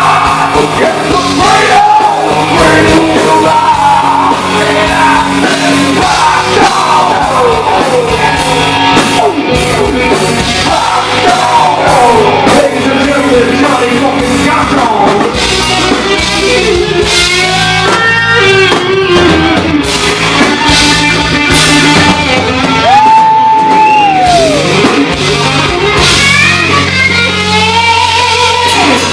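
Live rock band playing loudly, a singer's voice over electric guitar and drums.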